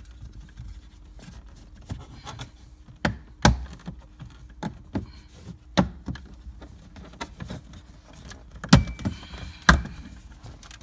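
Plastic trim clips snapping as a center console side panel is pried loose with a plastic pry tool: a series of about five sharp snaps with smaller ticks and creaks between them. The clips sound violent as they let go.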